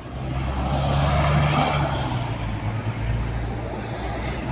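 Double-decker bus engine running close by with a steady low drone, its rush swelling to the loudest about a second and a half in as the bus passes, then easing off.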